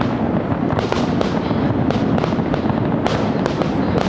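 Fireworks display: aerial shells bursting in a dense barrage, overlapping bangs and crackling several times a second.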